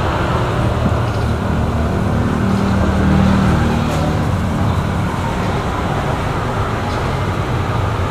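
Steady rumble of road traffic, with a vehicle's engine hum coming to the fore about two to three seconds in.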